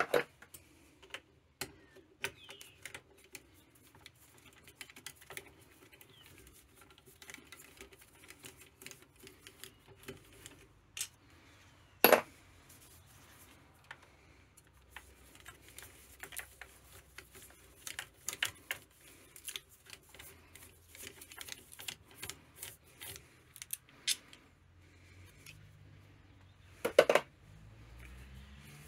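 Light metallic clicks and taps of a screwdriver and loose screws against the cast alloy side cover of a Tomos moped engine as the case screws are worked out. Two sharp, louder clacks stand out, one about twelve seconds in and one near the end.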